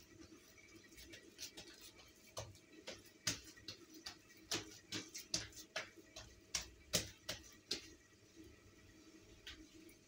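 Irregular sharp clicks and taps, a few a second, loudest from about three to eight seconds in, as hands press and work a large rolled-out sheet of dough on a tabletop.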